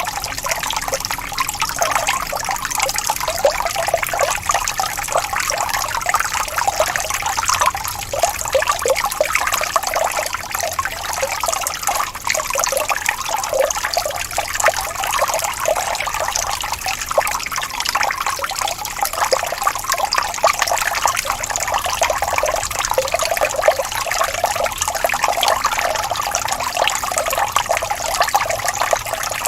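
Small waterfall: water trickling and splashing steadily.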